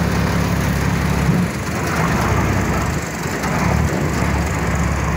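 Passenger speedboat's engine running with a steady low drone that dips briefly twice.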